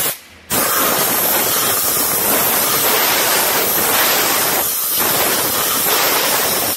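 Hose-fed spray gun hissing as it blasts cleaning spray into a removed aircraft engine cylinder in a parts-washing sink, with a short break near the start as the trigger is let off, then a steady jet until it cuts off suddenly.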